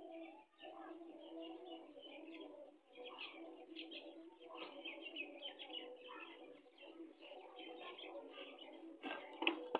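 Birds calling throughout, with a few sharp clicks near the end.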